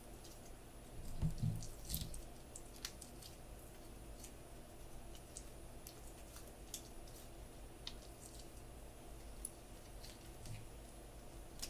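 Slime being pressed and squished by hand: faint sticky squishes with scattered small clicking pops, and a few louder soft thumps about a second in.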